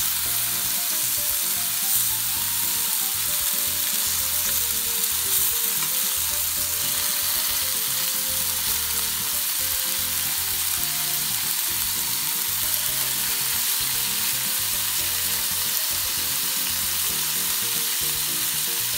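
Pork-wrapped tomato rolls sizzling steadily as they fry in a pan over medium heat.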